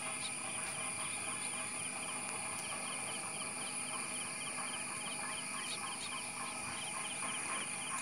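Tropical riverside forest ambience: insects keep up a steady high-pitched drone while birds give rapid, repeated short chirps.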